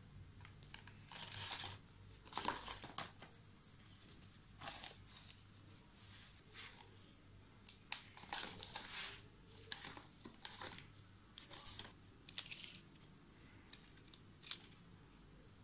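Irregular rustling and light knocks from hands handling a plastic crate and bamboo sticks on a cloth sheet.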